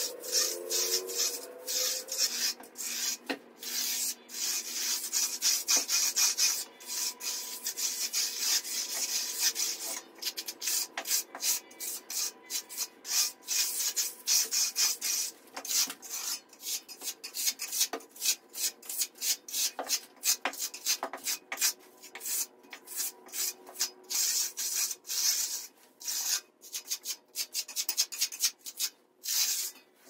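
Hand trowel scraping across wet, freshly poured concrete in many short, irregular strokes as the slab is finished.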